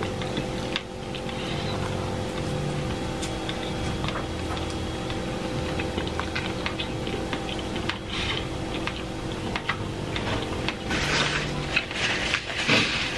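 Close-up eating sounds: noodles being sucked in and chewed, with a roast chicken being pulled apart by hand, many small wet clicks and smacks. A few louder noisy rushes come around the middle and near the end, over a steady low hum.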